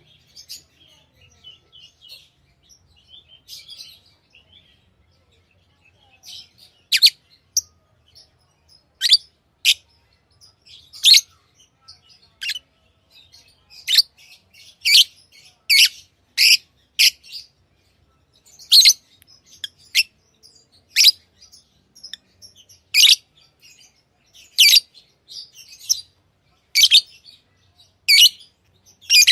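Pet lovebirds calling: soft scattered chirping for the first few seconds, then loud, sharp, high-pitched single calls about every second or two.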